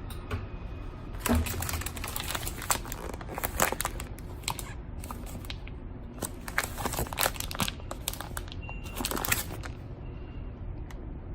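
Plastic vacuum-packaging bag being handled, crinkling with irregular sharp clicks and crackles.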